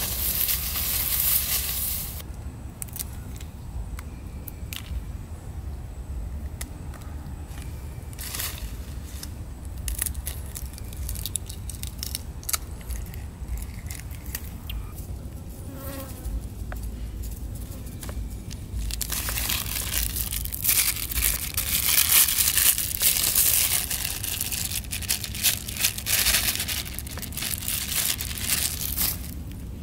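Close handling noise: small scattered clicks of eggshells being cracked and peeled, and several seconds of loud crinkling from a plastic bag being handled past the middle. Rustling brush at the very start.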